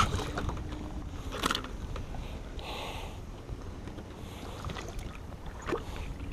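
A hooked bass splashing at the surface beside a kayak, loudest at the very start, followed by a few short splashes and knocks as it is lifted from the water, over a low rumble of wind on the microphone.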